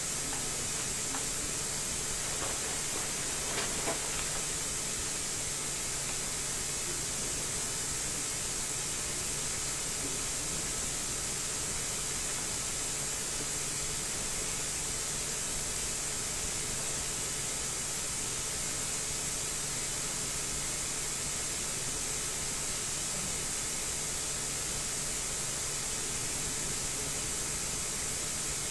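Steady hiss with a low hum and a faint high whine, unchanging throughout, with a few faint ticks about three to four seconds in.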